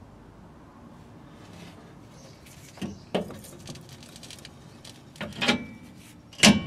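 Knocks and clinks of a Toyota Yaris rear shock absorber being handled and its lower bushing eye slid onto the threaded mounting bolt. A pair of knocks comes about three seconds in and a cluster about two seconds later. The loudest, a sharp metallic clack near the end, rings briefly.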